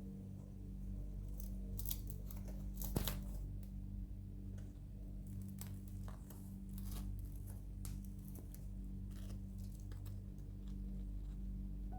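Crust of a freshly baked loaf crackling and crunching as it is broken into: scattered sharp crackles, the loudest about three seconds in, over a steady low hum.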